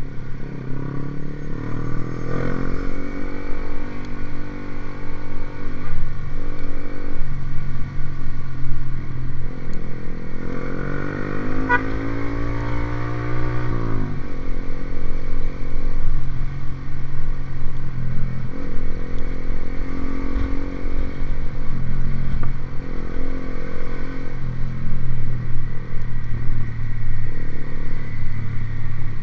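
Motorcycle fitted with an aftermarket racing exhaust, running and revved several times. The longest rev, around the middle, climbs for about three seconds and then drops off sharply.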